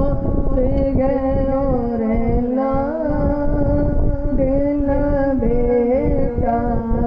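A man singing an Urdu naat (devotional poem) unaccompanied into a microphone, amplified, holding long wavering notes. A steady low rumble runs underneath.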